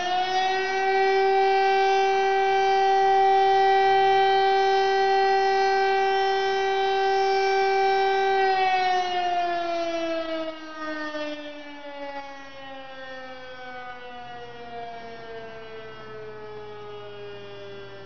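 DS977 rotating motor siren sounding its test signal. It reaches full pitch at the start and holds one steady wail for about eight seconds. Then it winds down in a slow, falling glide as the motor coasts to a stop.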